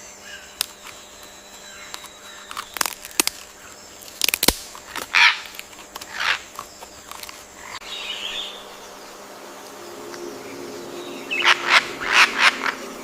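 Tropical forest birds calling: scattered short, harsh calls, then a quick run of about five near the end, over a steady background drone.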